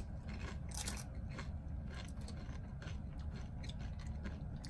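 Two people chewing crunchy chips: a quiet run of irregular crunches.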